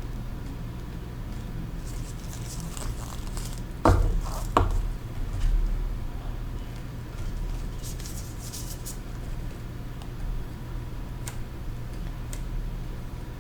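Small tools and parts being handled during a tablet repair. A few sharp taps about four seconds in are the loudest, with scattered faint scrapes and ticks, all over a steady low hum.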